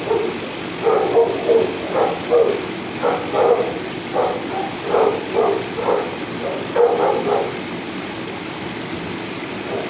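A dog barking: a quick run of short, repeated barks lasting about seven seconds, which then stop.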